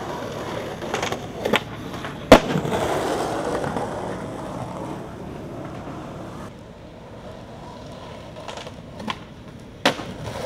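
Skateboard on concrete: a few light clacks, then a sharp loud clack of the board a little over two seconds in, followed by a few seconds of wheels rolling. Near the end come more taps and a louder clack of the board.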